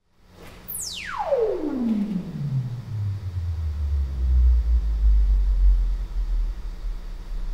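Stepped sine-sweep test tone for a total harmonic distortion measurement, played at 80 dBA through a car's audio system. Starting just under a second in, one pure tone drops quickly in twelfth-octave steps from very high to low pitch, then moves slowly through the deepest bass steps for several seconds before it stops.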